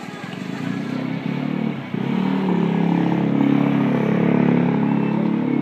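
Motor scooter engine running close by, its steady hum jumping up and growing louder about two seconds in.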